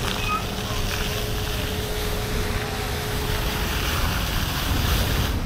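Steady wind rush on the microphone while riding a motorcycle, with a faint steady hum in the first half.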